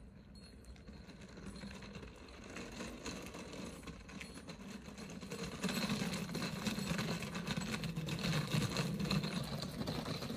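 Small wheeled suitcase rolling over stone paving, a steady rattling rumble that grows clearly louder a little past halfway through.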